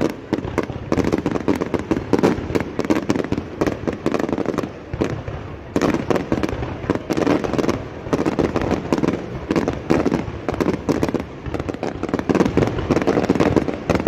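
Fireworks going off: a dense run of rapid pops and crackles, with a brief lull about five seconds in.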